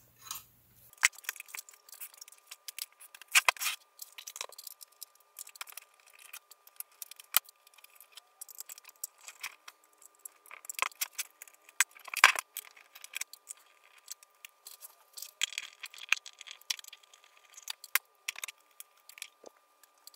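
Hands unplugging cables and shifting a stereo amplifier's metal chassis about on a workbench: irregular clicks, knocks and light rattles, the loudest about twelve seconds in.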